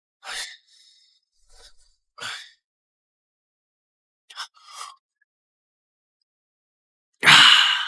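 A man breathing heavily in short, breathy exhales with pauses between, ending in a loud sigh near the end, as if flushed and uncomfortably hot.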